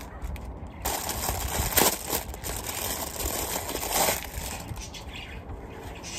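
Plastic packaging rustling and crinkling as a steering wheel cover is pulled out of its bag, busiest from about a second in to about four seconds in, then quieter handling of the cover.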